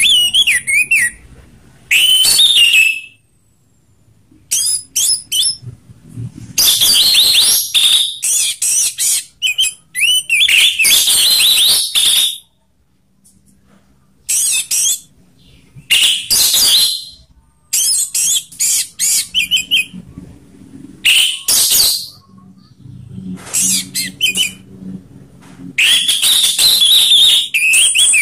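Orange-headed thrush singing its loud 'ngeplong' song, the full song that bird keepers prize: phrases of a second or two packed with quick whistles and rough, rasping notes, broken by short pauses.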